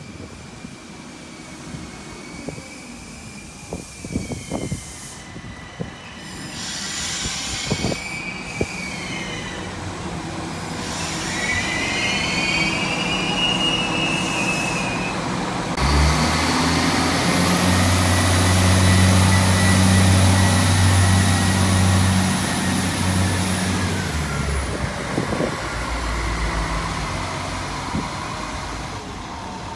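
Iarnród Éireann 22000 Class InterCity diesel railcar pulling slowly into the station: wavering high-pitched wheel squeals and a few clicks over the first dozen seconds, then a steady low drone from its underfloor diesel engine as the cars roll past, the loudest part, dying away about 25 seconds in.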